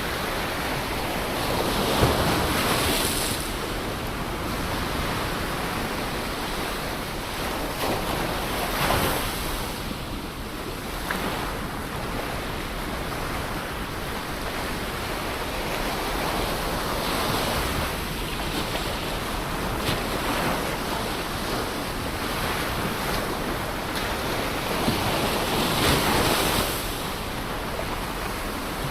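Ocean waves breaking and washing on the shore, a continuous rush of surf that swells every several seconds, with some wind.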